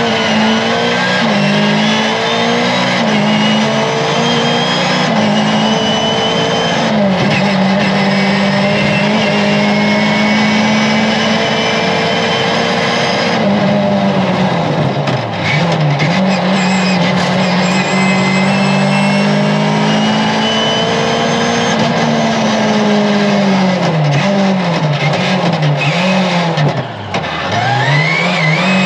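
Mercedes 190E 2.3-16's four-cylinder 16-valve engine running hard, heard from inside the rally car's cabin: revs mostly held high, dropping sharply and climbing again about halfway through, and again near the end after a run of quick rises and falls in pitch as the driver shifts gears.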